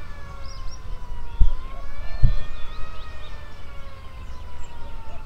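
A siren wailing, its pitch slowly rising and falling, over a steady low rumble. Two thumps come about one and a half and two and a quarter seconds in, with faint bird chirps above.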